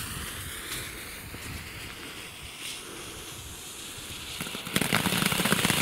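Nico gold-glitter firework fountain burning: a steady hiss of spraying sparks, which about five seconds in turns into much louder, dense crackling as the glitter effect kicks in.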